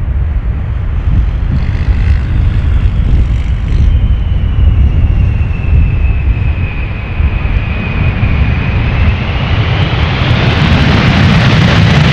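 Boeing 747 freighter's four jet engines on the landing roll, a heavy rumble with a whine that sinks slightly, then climbs higher and louder as the jet passes close by.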